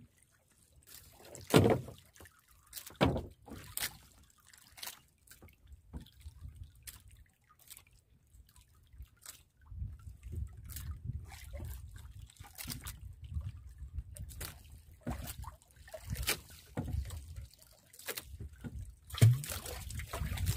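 Water sloshing and dripping beside the hull of a small wooden outrigger boat, with scattered knocks and clicks as fishing line and gear are handled. A low rumble sets in about halfway through.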